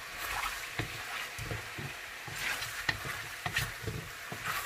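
Chicken wings simmering in a pot with a steady sizzle, while a cooking utensil knocks and scrapes against the pan several times at irregular moments as the pieces are moved about.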